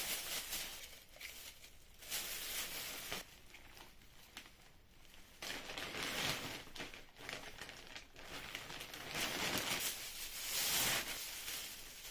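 Thin plastic carrier bags crinkling and rustling in several spells as they are handled, filled and their handles knotted.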